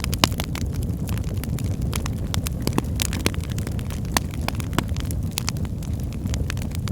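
Wood fire burning in a fireplace, crackling: a steady low rush of flame noise with frequent sharp pops and snaps at irregular intervals, a few each second.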